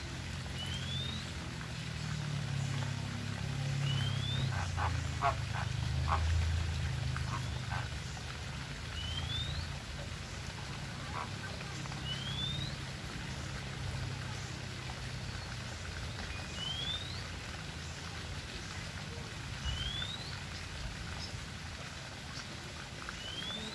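Flock of flamingos giving low grunting calls, strongest in the first few seconds. Over them another bird repeats a short rising whistle about every three seconds, with a few light clicks between.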